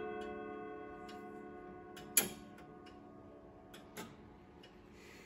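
Howard Miller 610-202 grandfather clock ticking while the last chime notes ring on and slowly fade, with one sharp click about two seconds in.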